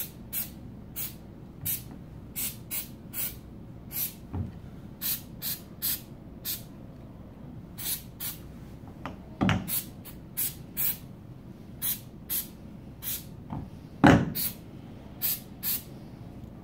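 Aerosol can of silicone lubricant spray hissing in many short spurts, about two a second, as the black plastic spigots of a cart shelf are lubricated. A few dull knocks come between the spurts.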